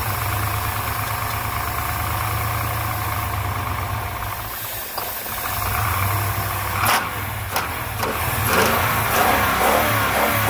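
Pickup truck engine running on starting fluid sprayed steadily into its air intake, with the aerosol can's hiss over the engine. It will not run on its own without the ether. A couple of sharp knocks come about seven seconds in.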